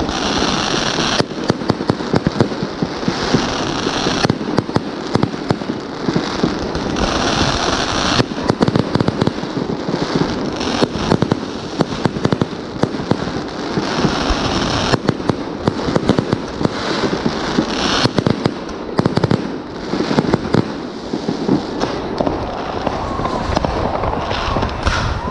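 Fireworks going off in quick succession: a multi-shot battery launching and bursting shells with crackling, and stretches of hiss every few seconds. Underneath is a constant din of more fireworks going off across the city.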